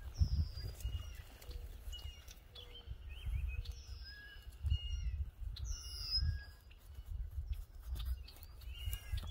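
Several birds chirping and calling, with repeated high, falling whistles among shorter chirps, over a low, irregular rumble that comes and goes.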